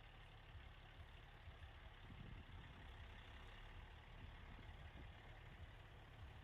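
Faint, steady low rumble of idling diesel semi-truck engines, with wind buffeting the microphone.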